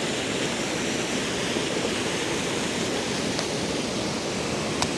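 Steady rush of fast-flowing water cascading over rocks at a waterfall, with one short sharp click near the end.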